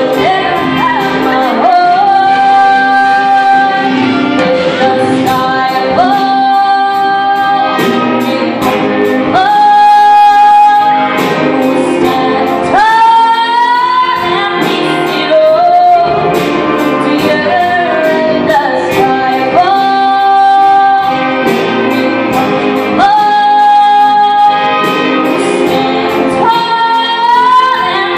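A girl singing through a microphone over a school jazz band accompaniment, with a cymbal keeping a steady beat. She holds long notes, sliding up into several of them.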